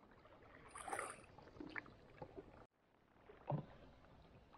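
Quiet canoe paddling on calm water: soft dips and drips of a single-blade paddle, with a short knock about three and a half seconds in.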